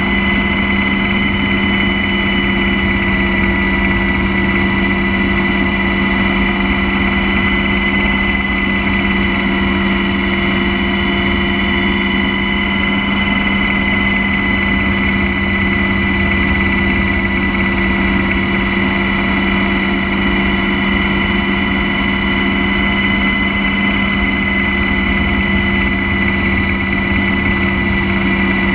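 Helicopter cabin noise in flight: a steady engine and rotor drone with a constant high whine over a low rumble, unchanging throughout.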